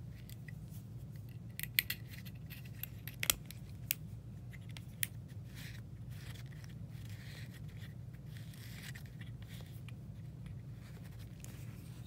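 Handling of a Zippo lighter's metal insert: a cluster of sharp small clicks and taps over the first few seconds, then soft scraping as fingers work at its bottom end, over a steady low hum.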